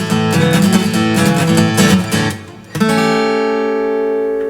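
Acoustic guitar strummed in a fast rhythm, then a single full chord struck about three seconds in and left ringing.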